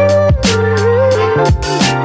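Background music with a drum beat and a melody.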